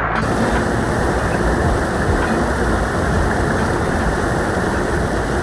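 Rushing water of a small river waterfall close to the microphone: a loud, steady roar of water with no pauses.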